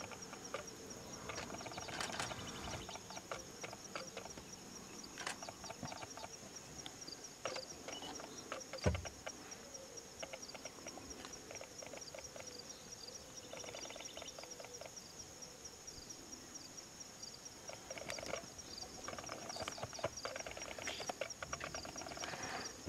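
Steady, evenly pulsing insect chorus with scattered bird calls chirping over it, and a single dull low thump about nine seconds in.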